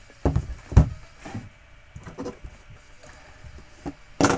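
Sealed trading-card boxes being handled and set down on a table: several short knocks and thumps, the loudest about a second in and another sharp one near the end.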